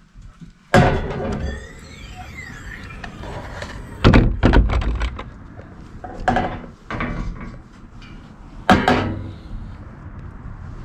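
A cabin door being opened, its hinge giving a high, wavering squeal, amid four heavy thuds a few seconds apart.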